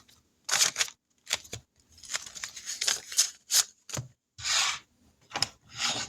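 Small dominoes being picked up, slid and set down on a table amid paper handling. The result is an irregular run of short clicks, scrapes and rustles, with a longer swish about two-thirds of the way through.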